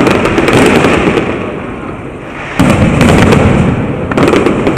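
Fireworks display: a dense, loud barrage of bursts and crackling that eases off midway, then comes back with fresh volleys about halfway through and again near the end.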